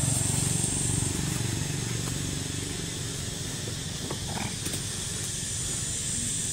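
A motorbike pulling a tuk-tuk carriage drives past, its engine running low and fading over the first two seconds. A steady high-pitched hiss sits over it, dropping away after about a second and coming back near the end.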